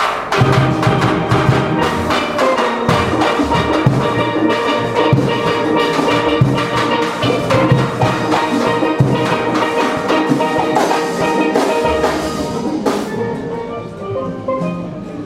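Steel band playing: many steelpans struck together over drums, the sound thinning and dropping a little near the end.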